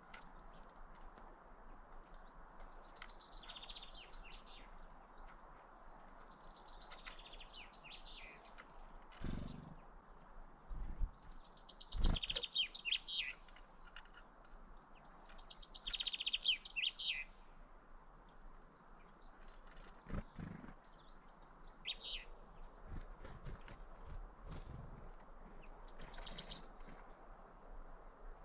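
Several small birds chirping and twittering in repeated bursts of quick high notes and trills, over a faint steady background hiss, with a few short low thumps.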